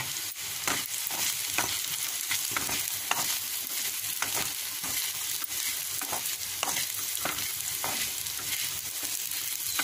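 Spiny gourd pieces frying in oil in a kadai, a steady sizzle, with repeated stirring strokes scraping through the pan as the just-added salt and spice powders are mixed in.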